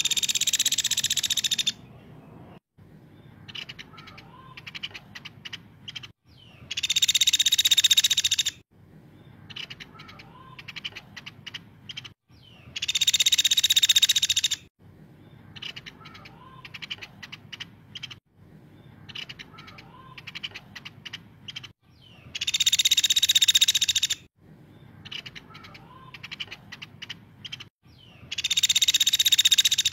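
Caladi, a small Indonesian woodpecker, calling: a loud, shrill, buzzy trill of about two seconds, five times, every six to nine seconds. Softer rapid ticking calls fill the gaps between trills.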